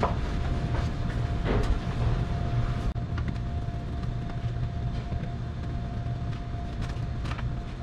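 Steady low machine hum with a faint steady tone, and a few light clicks and knocks as a screwdriver works on the metal casing of an air conditioner's outdoor unit.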